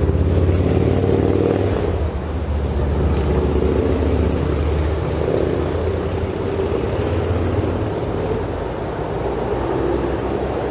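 A motor running steadily with a low, droning rumble.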